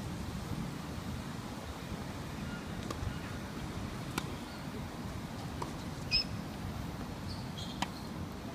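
Tennis ball being struck by rackets and bouncing: several sharp pops over a steady low outdoor rumble, the loudest about six seconds in.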